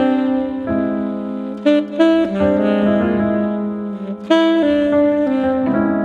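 Background jazz music: saxophone and piano playing slow, held notes that change every second or two.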